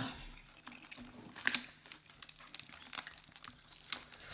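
Faint crinkling and small clicks of seafood boil being handled in a plastic bag, with a couple of sharper clicks about a second and a half in and near the end.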